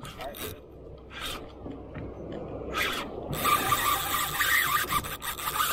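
Spinning reel being cranked, its gears and line giving a continuous rasp that gets louder and takes on a steady whine about three seconds in.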